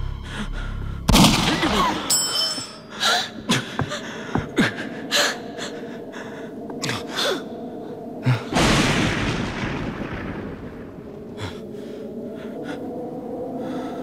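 Fight-scene sound effects from a film soundtrack: a sudden heavy crash about a second in and another about halfway through, each fading away slowly, with a quick run of sharp knocks between them. Gasping breaths are heard over a low, steady drone.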